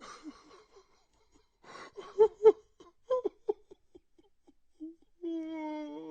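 A man crying: a couple of sharp sobs about two seconds in, then a run of short, quick sobbing catches, and near the end one long, drawn-out wail.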